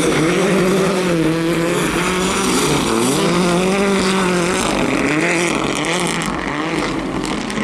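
Rally car engine running hard, its pitch climbing and dropping several times through the gears. A scatter of short clicks comes in near the end.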